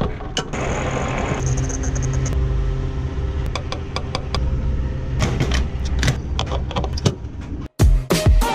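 Diesel being pumped through a fuel nozzle into a van's filler neck: the dispenser's steady hum and the rush of fuel, with a few sharp clicks late on. It cuts off suddenly near the end and background music starts.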